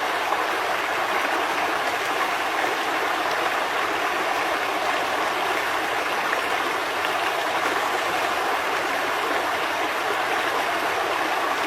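River water flowing: a steady, even rush of water.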